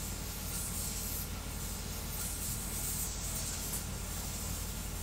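3D printer printing at high speed: a steady hiss of its cooling fans over the fast, low whirring of the stepper motors driving the toolhead back and forth.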